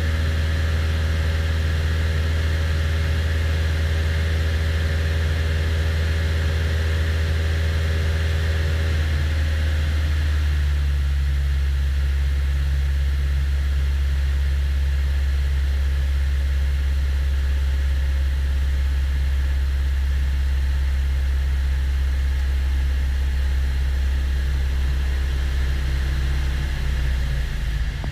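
Cessna 172's piston engine and propeller droning steadily in flight, heard inside the cockpit. The engine note shifts slightly about ten seconds in.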